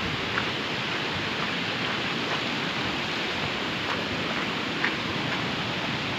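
Steady rushing noise with a few faint short ticks.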